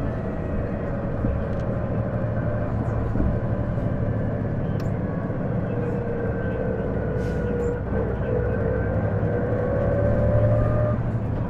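Diesel city bus (Isuzu Erga PJ-LV234L1) heard from inside, its engine droning steadily with a whine that rises in pitch in the second half as the bus pulls away. This is the whine the bus gives on every acceleration, like an automatic gearbox, which the owner suspects comes from the transmission.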